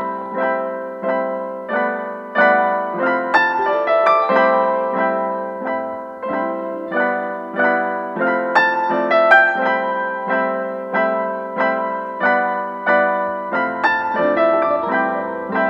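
Background piano music: a calm melody of struck notes, each ringing and fading, at an even pace.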